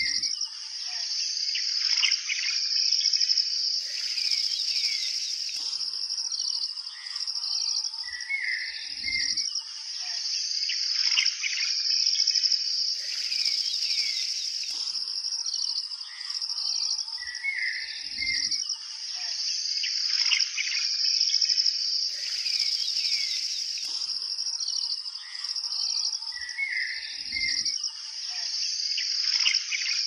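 Looped nature ambience: a steady high-pitched insect chorus with birds chirping over it. A brief rush of noise comes once in each loop, and the loop repeats about every nine seconds.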